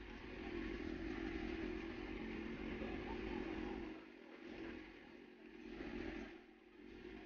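A motor vehicle engine runs steadily for about four seconds, then fades and swells twice as it moves off.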